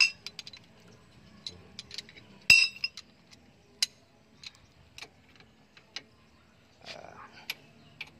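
Irregular sharp metallic clinks and taps of hand tools on metal van parts during wheel hub work. The loudest strikes come at the very start and about two and a half seconds in, each with a short ringing.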